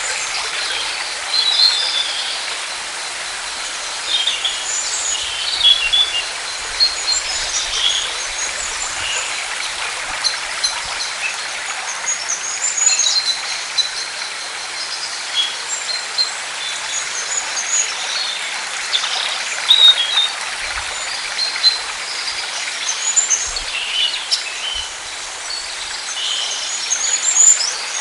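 Many small birds chirping and calling in short, scattered phrases over a steady rushing hiss of water.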